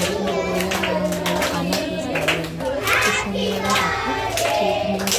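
A group of children singing a birthday song together and clapping their hands along, with a steady tune underneath.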